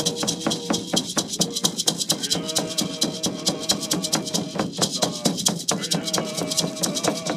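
Kwakwaka'wakw ceremonial dance song: rattles shaken in a fast, steady beat while voices sing held, chanted notes that grow stronger about two and a half seconds in.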